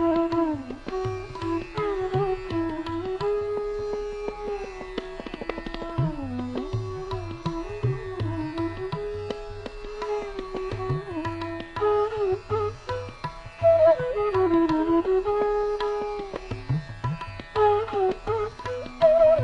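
Indian classical instrumental music: a melody that slides and bends between notes, over low hand-drum strokes.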